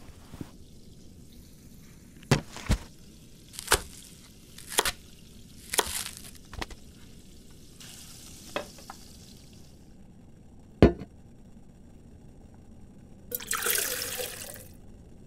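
Kitchen foley: a string of sharp, separate clicks and taps, a soft hiss for a couple of seconds in the middle, then a short pour of liquid into a pot near the end.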